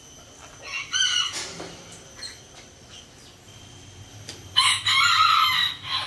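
Green-cheeked conure calling loudly: a short call about a second in, then a longer, harsh, held call near the end.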